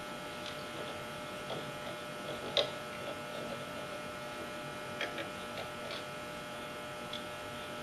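Faint steady electric hum, with a few light metal clicks from a wing nut being tightened on a hole saw fixture's arbor.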